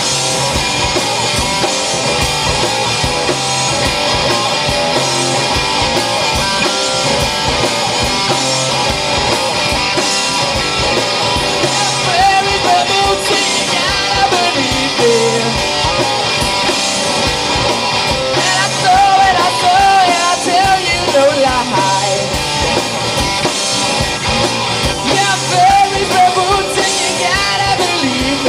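Live rock power trio playing through amplifiers: electric guitar, electric bass and drum kit. From about halfway through, a wavering lead line with bent notes rides over the band.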